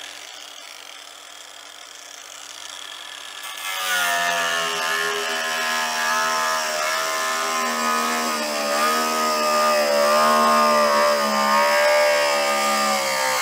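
Bauer cordless angle grinder spinning freely with a steady whine for the first few seconds. About four seconds in, its disc bites into the plastic ski skin and it gets much louder, its pitch wavering as the load changes while it tapers the ski's nose.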